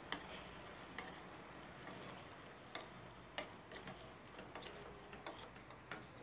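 Wooden spatula stirring vegetables in a black non-stick wok: irregular light knocks and scrapes against the pan, about eight in all, over a faint steady hiss.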